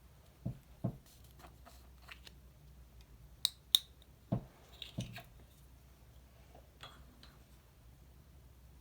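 Small objects being handled: a few soft knocks, then two sharp clicks in quick succession about three and a half seconds in, the loudest, followed by more light knocks and taps.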